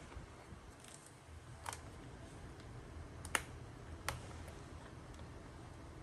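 A few light, sharp clicks and taps of small tools and parts being handled on an opened laptop, the sharpest about three seconds in, over a low steady room hum.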